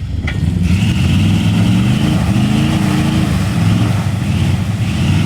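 A vehicle engine running hard under load, with a steady high whine over it. The revs rise a little around the middle and then ease back, as the stuck vehicle tries to drive forward.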